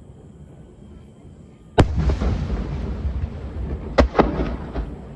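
Aerial fireworks shells bursting: one loud bang about two seconds in with a long rumbling echo, then a quick run of three or four more bangs about four seconds in.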